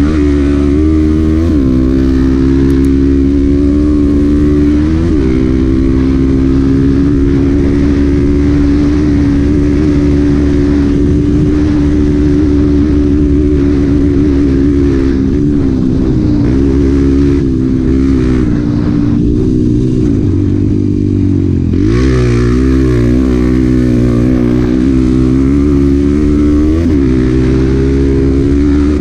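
Honda Bros 125 trail bike's single-cylinder four-stroke engine under load, heard close up from the bike as it rides a dirt trail. The engine holds a steady high note with brief drops in pitch a few times near the start and again near the end.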